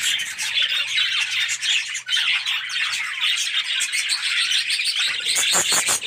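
A large flock of budgerigars chattering, many quick chirps overlapping without a break.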